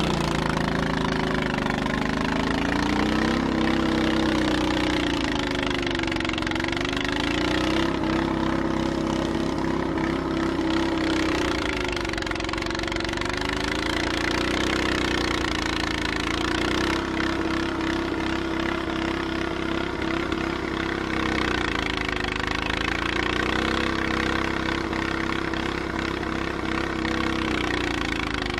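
Honda snowblower engine running hard, its pitch sagging and recovering every few seconds as it takes on snow.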